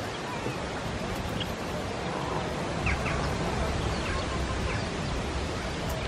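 Birds chirping briefly, a few short high calls scattered about a second apart, over a steady rush of wind and outdoor noise.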